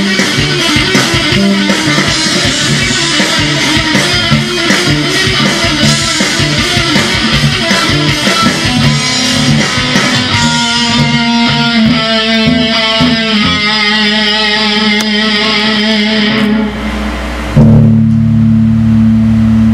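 Live metal band with distorted guitars and drums playing fast, then the drums drop out about ten seconds in and guitar notes ring out over each other; near the end a loud low chord is struck and held, the final chord of the song.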